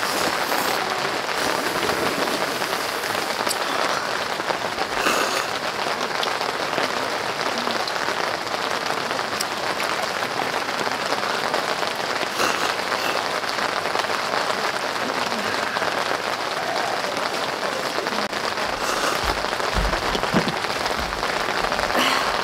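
Steady heavy rain from a sudden shower falling on a camping tent, with a few louder drops or taps standing out, several of them near the end.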